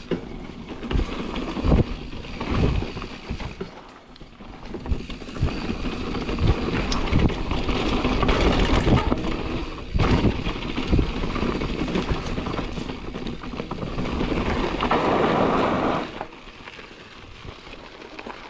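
Marin Rift Zone 2 full-suspension mountain bike being ridden over a dirt trail: a rough rushing of tyres and wind, broken by repeated knocks and rattles as the bike hits bumps. It dies down near the end.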